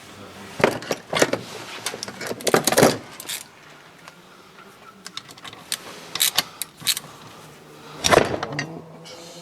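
Metal engine parts and hand tools clinking and knocking together in irregular clusters of sharp taps, as a motorcycle engine's bottom end is assembled by hand.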